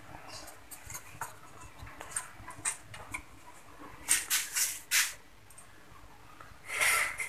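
Handling of spark plugs just removed from the engine: a few small metallic clicks, then short scratchy rubbing strokes, several about four to five seconds in and one more near the end, as a plug is wiped with a rag.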